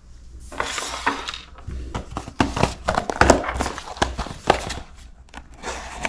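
A small cardboard box being handled and opened by hand, with a thin metal tool: a busy run of quick clicks, taps and scrapes of card, and a short crinkle about half a second in.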